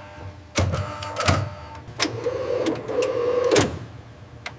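Factory machinery: several sharp clacks, and a small motor whirring steadily for about a second and a half in the middle.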